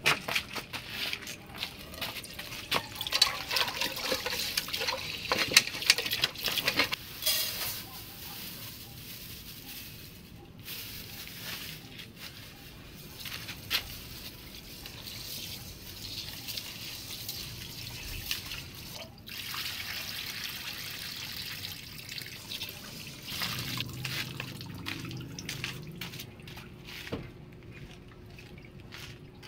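Rice being washed by hand in a small metal pot: water swishing, trickling and being poured off, with short knocks of hand and pot against the metal.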